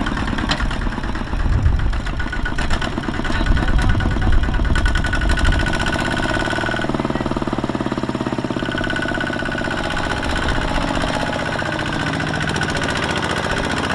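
Single-cylinder Kubota diesel engine of a two-wheel walking tractor running under load in deep mud. It is louder and rougher with heavy low pulsing for the first several seconds, then settles into a steady, even chugging.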